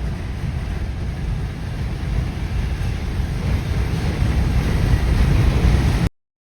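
Low, steady rumble of wind and a moving car, growing a little louder, then cutting off suddenly near the end.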